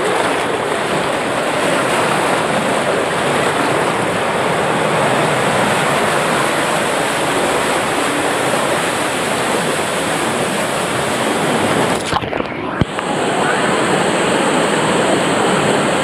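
Fast, foaming water rushing down a wild-river water slide channel, heard close up from a camera riding at water level. The rush is steady, except about three quarters of the way through, where it goes briefly dull and muffled with a single sharp knock.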